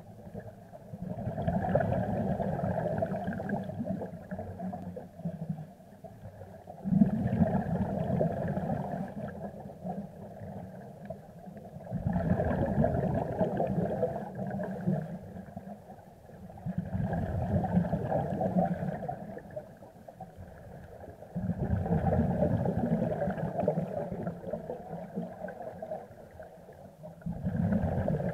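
Scuba diver's regulator exhaust bubbles heard underwater: six rumbling, bubbling exhalations of about three seconds each, roughly every five seconds, with quieter gaps between for the in-breaths.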